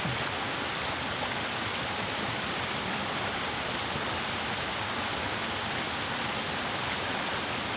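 Steady rushing of a creek's running water at a stream crossing, an even noise that does not change.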